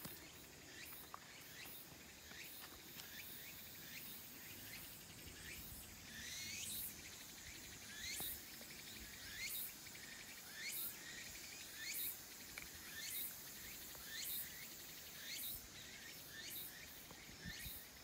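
Faint insects calling outdoors: short rising chirps about once a second over a steady high buzz.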